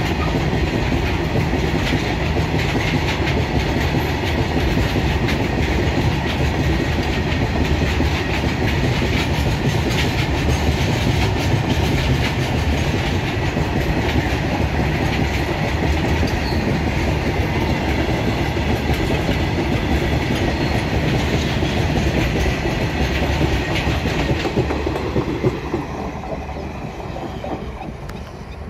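A long Indian Railways freight train of open-top wagons passing close by, its wheels rumbling and clattering over the rail joints in a steady stream of knocks. The sound fades near the end as the last wagon and the brake van pull away.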